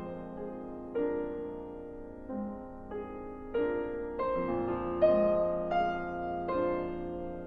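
Slow piano music: single notes and chords struck every second or so and left to ring.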